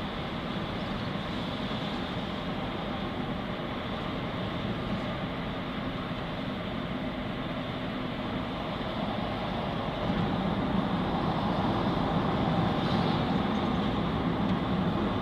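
A car driving along a road, heard from inside: steady engine and tyre noise that grows louder about ten seconds in.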